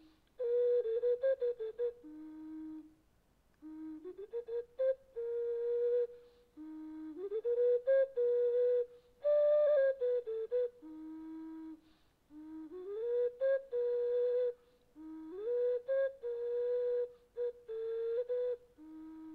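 Background music: a solo flute playing a slow melody in short phrases, each sliding up from a low held note to a higher one, with brief pauses between phrases.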